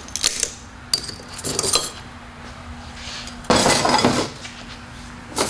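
Metal TH350 automatic transmission parts clinking and clattering against each other and the workbench as they are handled during a teardown: a few light clinks, then a louder, longer scraping clatter about three and a half seconds in.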